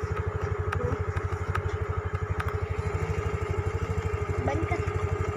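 TVS Jupiter ZX scooter's small single-cylinder four-stroke engine idling steadily with an even, rapid pulse.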